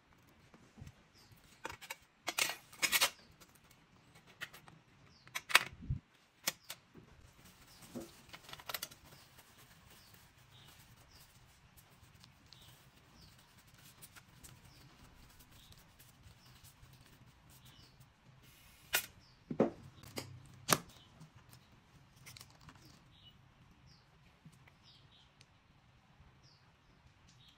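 Handling noises from a disassembled, corroded phone: short clicks, scrapes and crackles of its metal casing and parts under gloved hands, in a few brief clusters with quiet stretches between.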